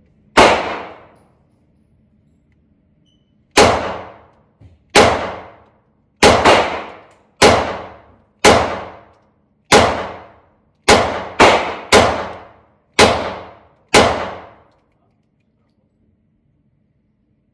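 Thirteen 9mm pistol shots from an FMK 9C1 Gen 2, fired at an uneven pace of about one a second with one quick double, each followed by a short echo tail. The cheap LAX ammunition cycles through the whole magazine without a malfunction.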